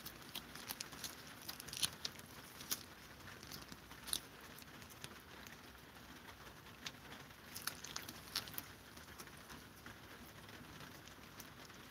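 Two cats licking lickable paste treat squeezed from tubes: faint, irregular wet tongue clicks and lapping, thicker in the first few seconds and again about eight seconds in.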